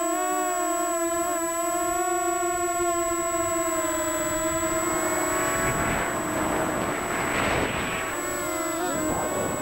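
Multirotor drone's electric motors and propellers whining steadily, picked up by the camera riding on the craft, the pitch wavering slightly as the throttle changes. About five seconds in, a rushing wind-like noise covers the whine for about three seconds, then the whine comes back with its pitch wobbling. A thin, high, steady tone runs underneath.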